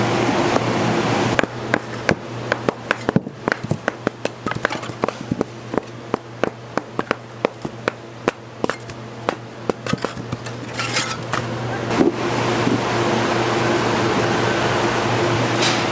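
A quick, irregular run of sharp knocks, several a second, lasting about ten seconds, with a steady hum before and after it.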